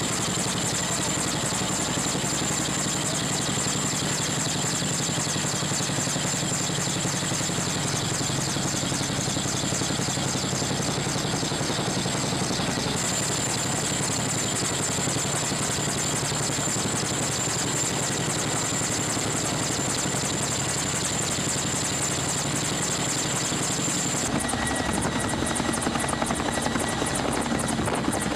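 Boeing CH-47 Chinook tandem-rotor helicopter hovering overhead: a steady, rapid rotor chop with a high turbine whine. About 24 s in the sound shifts and grows slightly louder and sharper.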